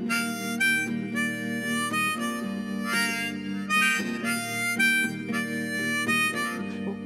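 Harmonica in a neck rack playing a melody of held notes that change about every half second, over a strummed semi-hollow-body electric guitar. This is the instrumental intro of the song before the vocals come in.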